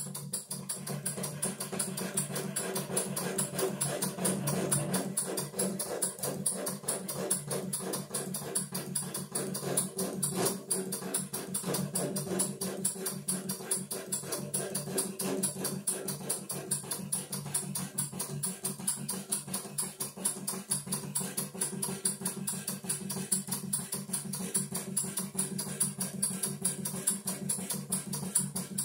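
PM Research No. 3 vertical steam engine, turned up to 15 pounds of steam, belt-driving an old Delta scroll saw through 3/4-inch pine: a fast, even clatter of the reciprocating saw and engine that holds steady throughout.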